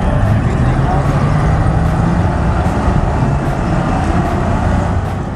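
Tracked armoured military vehicle driving close past, its engine running loud with the low rumble of its tracks over dirt.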